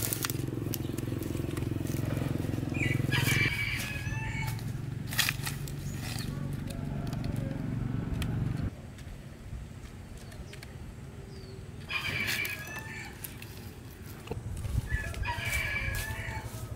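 Rooster crowing three times, about three seconds in, near twelve seconds and near the end. A low steady hum runs underneath and stops abruptly about halfway through.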